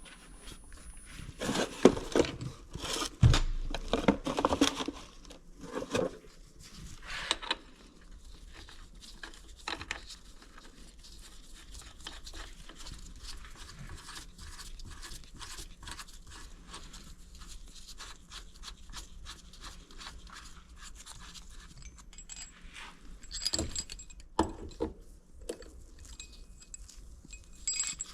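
Metal hand tools clanking and knocking against an engine's crankcase as a case-splitter puller is fitted. This is followed by a long run of quick small clicks and scrapes as it is worked, with a few more knocks near the end.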